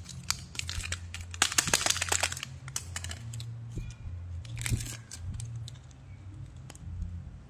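Crinkling and clicking of stiff plastic candy packaging handled in the fingers, densest in the first two and a half seconds, and a paper lid being peeled back from a clear plastic candy tray.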